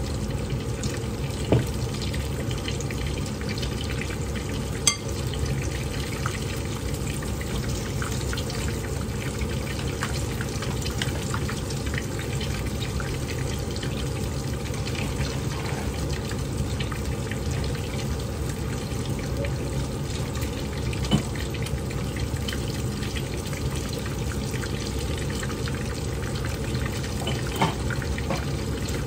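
Breadcrumbed Korean corn dogs on wooden skewers sizzling steadily as they shallow-fry in hot oil in a frying pan, with a constant fine crackle and a few sharper pops.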